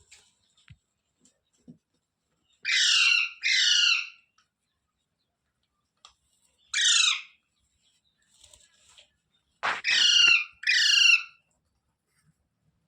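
Indian ringneck parrot (rose-ringed parakeet) giving loud, harsh squawks, each a quick run of falling notes: a pair, then a single call, then another pair near the end.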